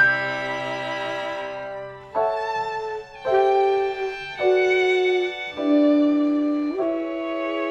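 Chamber music from a string group: a held string chord with a low cello note fades out about two seconds in. A violin then plays a slow line of sustained, bowed notes, one about every second, mostly stepping downward, with a short upward slide near the end.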